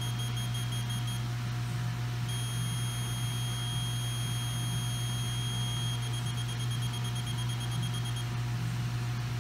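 Magneto timing light (buzz box) sounding a high, steady electronic beep over a constant low hum. The beep drops out about a second in, comes back, pulses on and off near the end and then stops: the signal switching as the magneto points open and close while the engine is turned to set the ignition timing.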